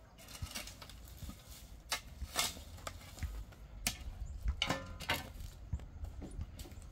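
Steel spade scraping and striking stony soil, a few separate scrapes and knocks, with a short metallic clank a little before five seconds.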